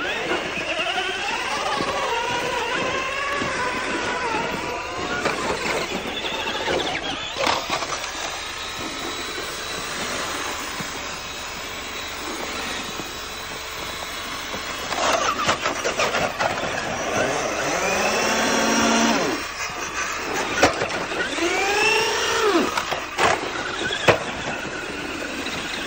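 Radio-controlled cars' motors whining as they drive over snow, the pitch rising and falling with the throttle in several sweeps. There are a few sharp knocks, the loudest near the end as one car tumbles.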